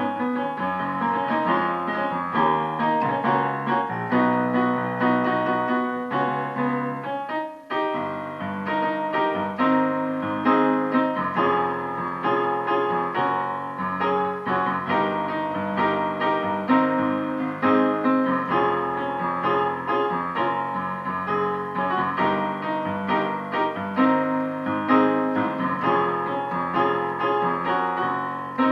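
Piano playing a gospel chord progression in D flat, full chords over a moving bass line, with a brief gap about eight seconds in.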